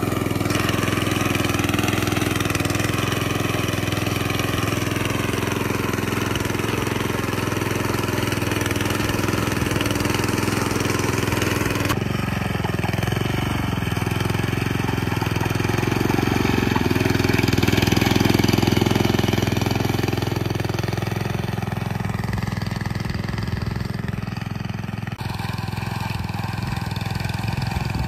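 Walk-behind tractor's small engine running steadily under load as it pulls a hiller plough through the soil, cutting furrows.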